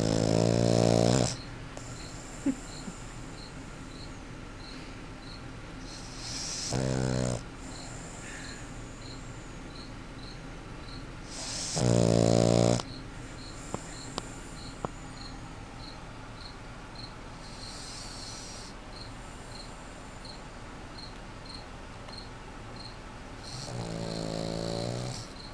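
A puggle snoring loudly: four snores, each a second or so long, with gaps of several seconds between them.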